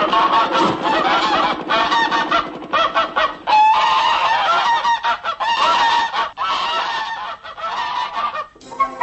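Goose-like honking calls, many short warbling honks in quick succession with brief breaks between them.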